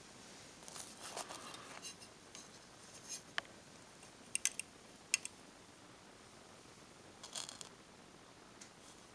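Faint handling noise: scattered small clicks and brief rustles, with a quick cluster of sharp ticks about four and a half seconds in.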